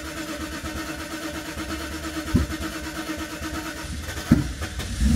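A Mercedes SL500 V8 is starting and catching, running unevenly, with two sharp pops from the exhaust about two and four seconds in.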